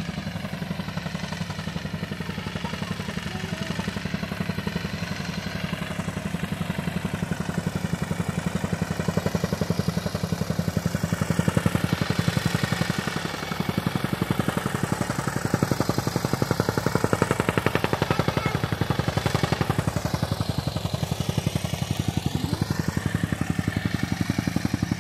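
Petrol tamping rammer (jumping-jack soil compactor) running and beating the soil in a rapid, steady rhythm as it levels and compacts the ground.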